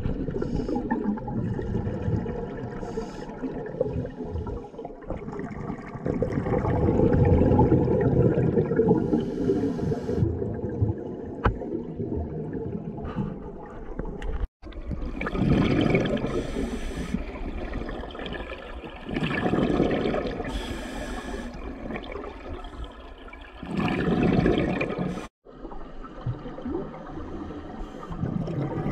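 Scuba regulator breathing heard underwater: gurgling, bubbling rushes of exhaled air that swell and fade every few seconds. Two brief dropouts to silence break it.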